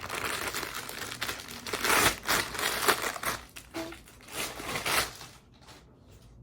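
Crinkly packaging rustling as a newly delivered handbag is unwrapped, in irregular bursts that die down after about five seconds.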